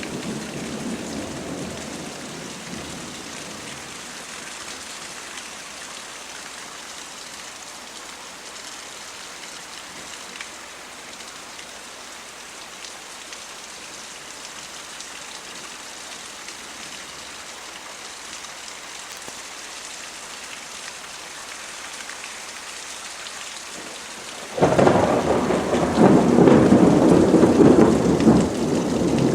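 Thunderstorm with steady rain hissing down. A thunder rumble dies away over the first few seconds. Near the end a loud peal of thunder breaks in suddenly and rumbles on.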